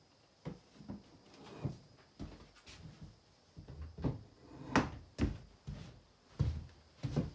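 Spring-loaded step-down casters being pushed down by foot one after another, each giving a clunk as it lifts the heavy cabinet and locks in place, mixed with boot steps on a plywood floor. The loudest clunk comes a little under five seconds in.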